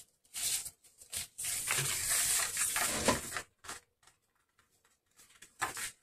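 Cardstock being handled and creased by hand: rustling and rubbing of paper along a fold in several bursts, with a longer rub from about one and a half to three seconds in and a short pause after about four seconds.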